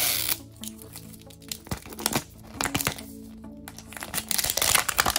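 Light background music with plastic packaging crinkling as it is handled, loudest at the start and again near the end, with a few small clicks in between.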